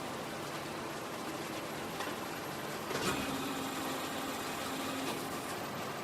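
Factory ambience: a steady wash of machinery noise with faint humming tones, and a single knock about three seconds in.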